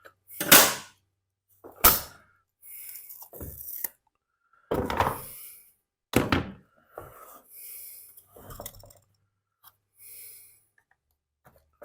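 Knocks, thunks and short clattering scrapes of plastic blower-housing parts and hand tools being handled on a workbench during disassembly. The loudest knocks come about half a second, two seconds and six seconds in.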